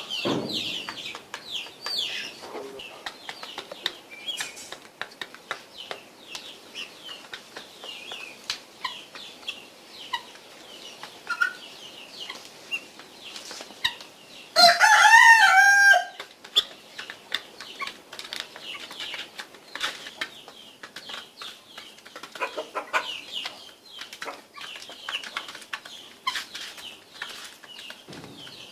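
Guinea fowl chattering with many short, high calls while feeding, mixed with quick clicks. About halfway through, one loud wavering call lasting about a second and a half stands out above the rest.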